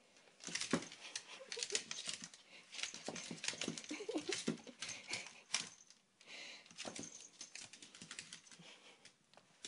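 Toy poodle's claws clicking on a hardwood floor as she walks and turns about, a quick irregular patter of ticks.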